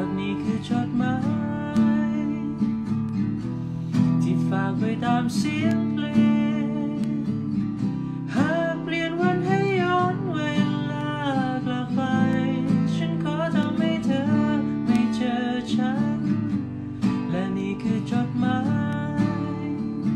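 A man singing a slow song in phrases over strummed acoustic guitar chords.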